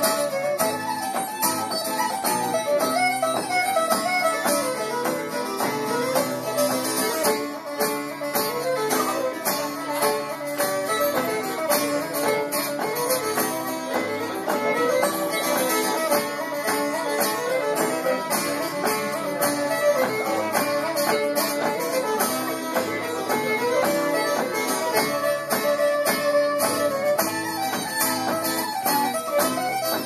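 Fiddle and acoustic guitar playing an Irish tune: the fiddle runs a fast melody over strummed guitar chords, without a break.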